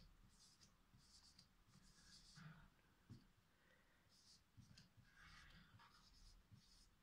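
Red marker writing on a whiteboard: faint, short scratchy strokes of the felt tip as letters are drawn.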